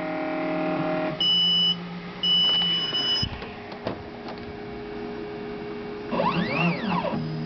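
Solido SD300 3D printer: its motor hum stops about a second in, and two electronic beeps follow, a short one then a longer one, as the machine signals it has finished. A click and a faint steady hum follow, with a whine that rises and falls near the end.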